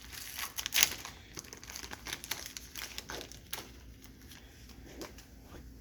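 Wrapper of a Panini Prestige football card pack being torn open and crinkled, loudest in the first second, then fainter rustling as the cards are handled.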